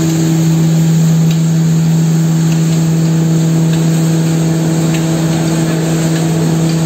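Belt-driven turmeric grinding machine running steadily under its electric motor: a loud, constant hum over a wide hiss, with faint ticks scattered through.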